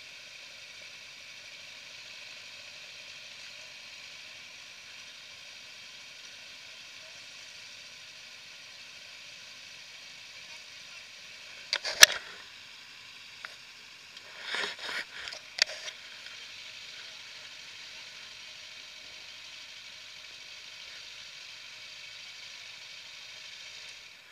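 Steady hiss from a bike-mounted action camera, broken about halfway through by a cluster of sharp knocks and short scrapes as the camera is handled and moved.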